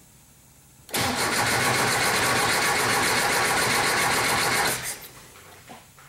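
Starter cranking a 1973 Porsche 914's air-cooled flat-four for about four seconds with an even rhythm, then stopping abruptly without the engine catching. This is a crank, no-start condition: there is fuel pressure and spark, but the engine will not run.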